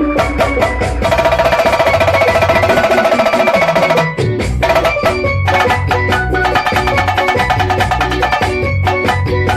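Band playing an instrumental passage: drums and percussion over a moving bass line, with a fast, even repeated note figure from about one to four seconds in.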